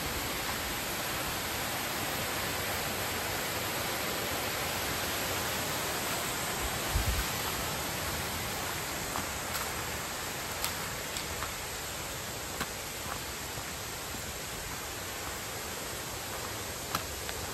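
Waterfall rushing in a steady, even roar of falling water, with a brief low bump about seven seconds in and a few faint clicks later.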